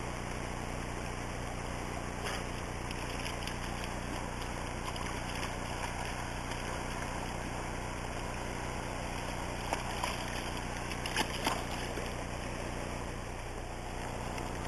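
River water flowing steadily over the shallows, with a few short splashes from a German Shorthaired Pointer wading through it, about two seconds in and twice more about ten seconds in.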